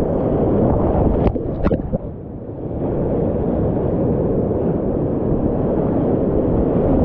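Whitewater rapids rushing around a kayak as it runs down through them, a dense, steady low rush heard close to the water. Two sharp knocks come about a second and a half in, followed by a brief dip in the rush.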